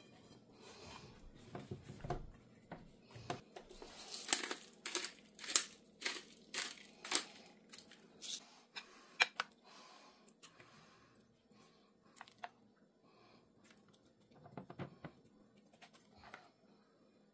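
A large flour tortilla being pressed and folded into a nonstick frying pan, with crinkling rustles and a run of sharp crackly clicks in the middle, then quieter handling near the end.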